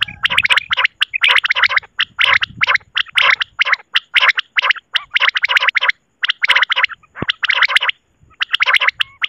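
Common quail (batair) calls, a recording of the kind played to lure quail: short bursts of fast clicking notes repeated over and over with brief gaps, with a longer pause about seven to eight seconds in.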